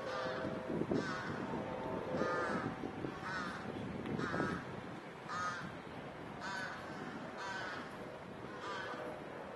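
A crow cawing over and over, short harsh calls about once a second, over a steady background hum.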